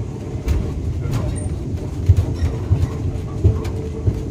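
Museum tram running on its rails: a heavy low rumble with irregular knocks and clatter from the wheels and running gear.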